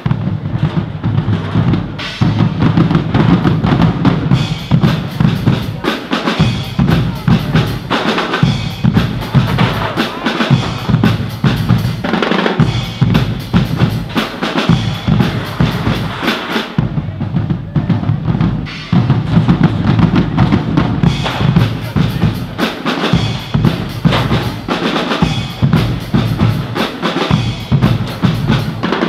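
Drums playing a steady, loud rhythm with bass drum and snare.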